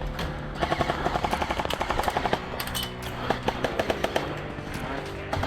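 Several short bursts of rapid automatic fire from airsoft guns, a fast clatter of shots, with background music underneath.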